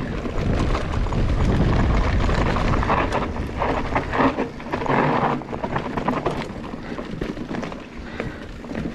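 Mountain bike being ridden fast: wind buffeting the microphone over tyre rumble and rattling from the bike. Loudest for the first five seconds or so, then easing off, with sharper knocks and rattles.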